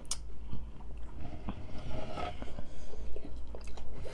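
Tacos being bitten and chewed, with irregular crunching clicks.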